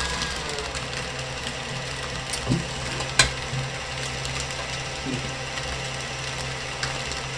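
KitchenAid stand mixer running steadily, its motor humming as the beater creams butter and shortening in the steel bowl. One sharp click about three seconds in.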